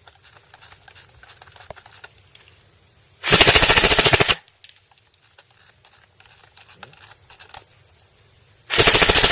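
Airsoft electric gun firing two full-auto bursts on a 9.6-volt 1600 mAh battery, a rapid rattle of shots at about 857 rounds per minute. Each burst lasts about a second; the second starts near the end.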